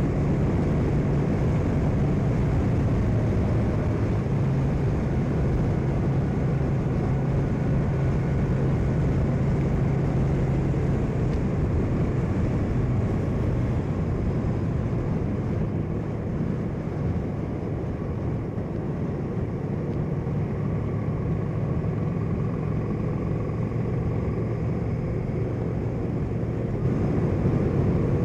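Cruiser motorcycle engine running steadily at road speed, heard from on the bike together with wind and road noise. The engine tone eases off a little past the halfway point.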